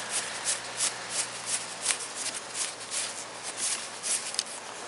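Ratchet wrench clicking steadily, about three clicks a second, as it backs out an ignition coil bolt on a Toyota VVT-i engine; the clicking stops a little after four seconds in.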